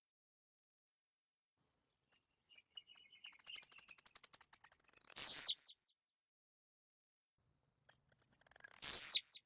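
Blue-black grassquit (tiziu) singing twice, each song a run of rapid, high ticks that quickens and ends in a loud, sharp falling buzzy note. The first song builds from about two seconds in, and the second, shorter one comes near the end.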